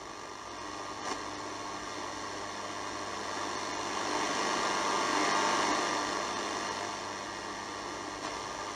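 Toshiba RT-2580L radio cassette recorder's speaker hissing with static between stations as the dial is tuned. The hiss swells to its loudest about halfway through, then fades again.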